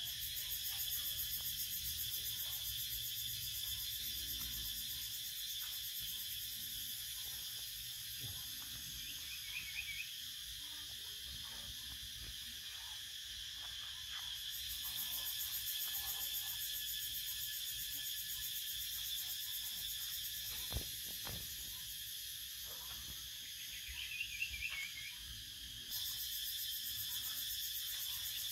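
Steady chorus of insects: a high, shrill, layered hum with a fast pulsing at the top, swelling about halfway through and stepping up sharply near the end. A short run of quick chirps sounds twice, and a few soft clicks come a little past the middle.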